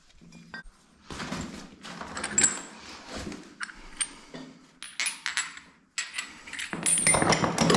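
Metal tools clinking and knocking together as chrome tap sockets are handled and picked out of a tool bag: a string of short, sharp clicks and clacks with brief pauses.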